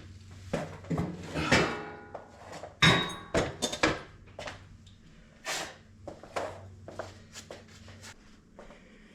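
Irregular knocks and clunks, about a dozen, with some short scrapes, like tools and material being handled. The loudest come about a second and a half and three seconds in. A faint steady low hum runs underneath.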